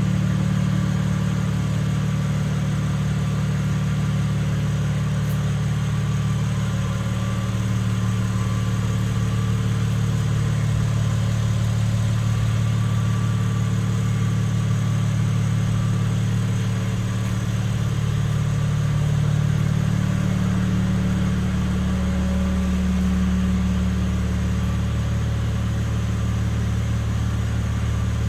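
BMW M3 running steadily, a low even hum with little change in pitch, which the owner takes for a strange sound.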